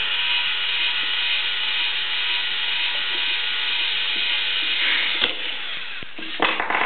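Lego Mindstorms robot's small geared electric motors whirring steadily as it turns with the red ball that its light sensor has picked out. A few sharp clicks and knocks near the end.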